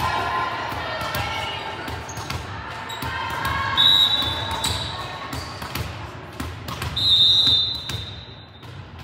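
A volleyball bounces on a hardwood gym floor with repeated knocks, mixed with players' high-pitched shouts and calls echoing around the hall.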